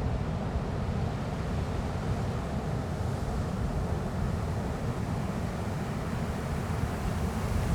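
Ocean surf rolling in as a steady low rumble, mixed with wind.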